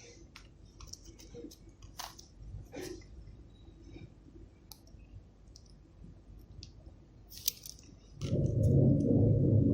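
Scattered light clicks and taps of small metal tools and solder balls on a BGA reball stencil. About eight seconds in, a loud steady hum starts up and keeps going.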